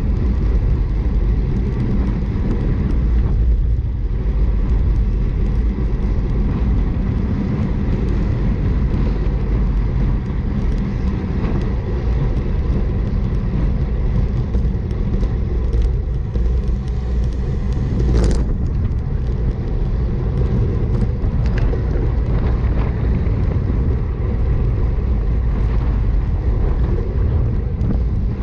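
Wind rushing over the microphone of a camera on a racing bicycle at about 27 mph, a steady low rumble, with one sharp click about eighteen seconds in.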